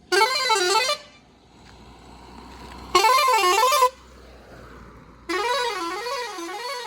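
Roots Hexatone multi-tone car horn sounding three blasts of a warbling tone whose pitch swings up and down about twice a second; the last blast is the longest.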